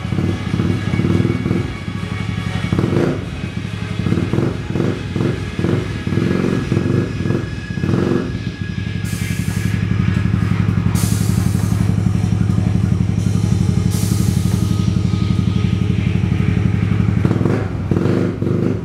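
Custom Majesty C big scooter's swapped Suzuki Skywave engine running, uneven for the first several seconds and then steady. Three short bursts of air hiss come over it in the second half, typical of the air suspension venting or filling.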